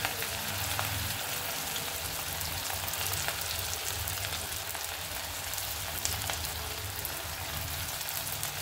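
Batter-coated cauliflower florets deep-frying in hot oil in an iron kadai: a steady sizzle with fine crackles as more pieces are dropped in one by one.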